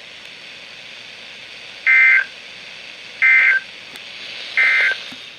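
Emergency Alert System end-of-message signal: three short bursts of SAME data tones, each under half a second and spaced about a second and a half apart, marking the end of the weather alert. A steady hiss runs underneath.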